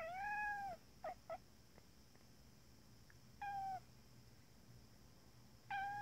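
Calico cat giving short meows at birds: a longer arched call at the start, two quick chirp-like calls about a second in, another call at about three and a half seconds and one more near the end.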